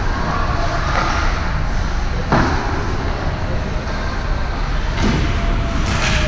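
Steady noise of a youth team game in play in a large hall, with one sharp knock about two and a half seconds in.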